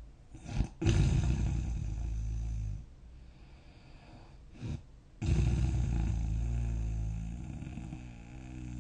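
A sleeping person snoring: two long, loud, rattling snores, the first about two seconds long and the second nearly four. Each comes after a short catch of breath, and the second tapers off toward the end.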